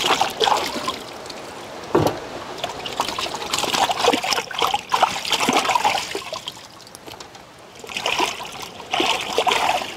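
Water splashing, sloshing and trickling in irregular bursts as hands wash whole plucked chickens in a large aluminium pot of water.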